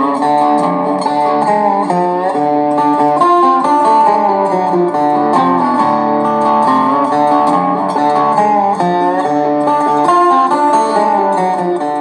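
Music with plucked guitar, played as an audio demo through a giant AirPod-shaped Bluetooth novelty speaker with a 2-inch driver.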